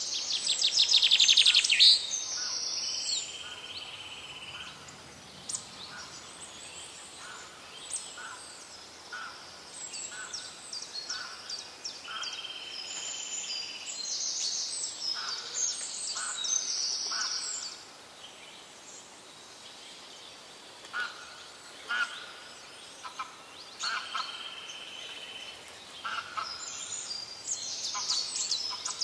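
White storks bill-clattering: a rapid rattle of clacks for about the first two seconds, the loudest sound here. Small birds chirp and call on and off for the rest of the time.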